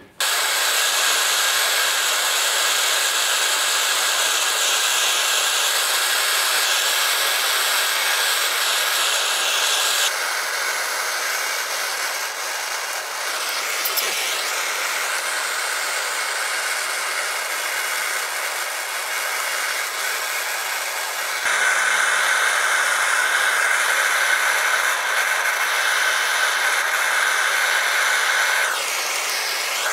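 Handheld gas torch hissing steadily while soldering a steel fuel tank. The hiss drops a step about ten seconds in and grows louder again a little past twenty seconds.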